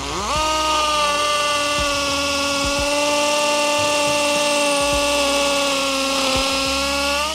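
Ingco CIDLI20012 20 V cordless hammer drill in hammer mode, drilling a hole into a wall with a 6 mm concrete bit. The motor spins up in the first half-second, runs at a steady pitch for about seven seconds, then stops.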